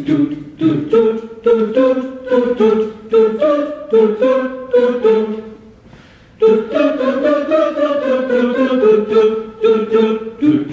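Choir singing a cappella in several parts on a neutral syllable rather than the words, in short separate notes, breaking off briefly about six seconds in and then going on with longer held notes.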